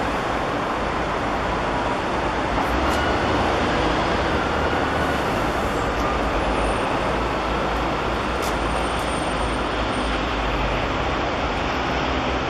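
Steady background noise: an even rush with a low rumble underneath and a few faint gliding whines, level throughout.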